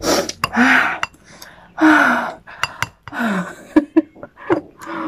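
A woman huffing and hissing hard breaths out through her open mouth, four or five times, with short falling voiced groans, from the burn of hot green chilies. A few light clinks of the ceramic bowl come between the breaths.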